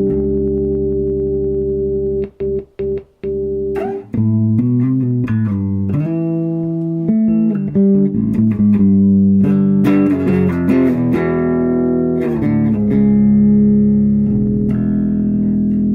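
Electric bass guitar played through an Orange OBC 112 bass cabinet: a held note, a few short choppy stabs about two seconds in, then a run of changing notes with some chords.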